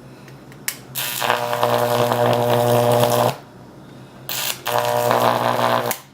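High-voltage arc from a microwave oven transformer buzzing loudly in two bursts of about two seconds each. Each burst is a harsh mains hum with a sizzling edge and cuts off suddenly. A sharp click comes just before the first.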